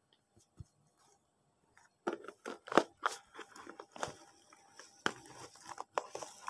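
Torn cardboard scraps sliding and tumbling out of a tipped cardboard box. A dry crackling and rustling starts about two seconds in, with the loudest crunch shortly after.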